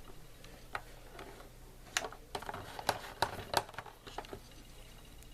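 Scattered sharp clicks and light plastic knocks from a box fan being handled, bunched together about two to four seconds in, over a faint steady low hum.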